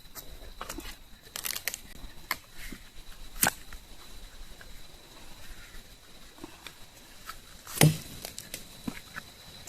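Scattered small knocks, clicks and rustling of objects being handled, with one louder thump about eight seconds in.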